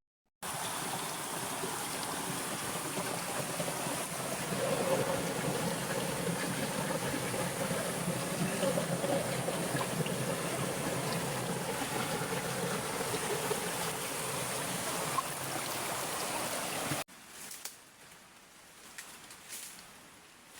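Steady rush of running water, like a stream, that cuts off abruptly about 17 seconds in, leaving a faint hiss and rustle.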